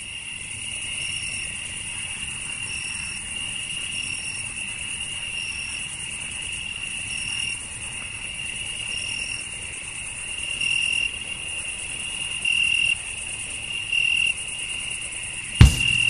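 Crickets chirping: a dense, steady high trill with a separate short chirp repeating about every second and a half. Near the end, a single loud strike on a drum kit cuts in.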